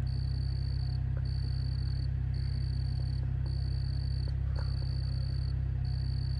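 Vehicle engine running with a steady low rumble. A high-pitched tone pulses on and off about once a second over it.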